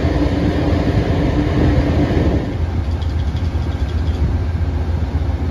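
Amtrak Superliner passenger train standing at a station platform, giving off a steady low hum and rumble while idling. A steadier, higher hum runs alongside it and stops about two and a half seconds in.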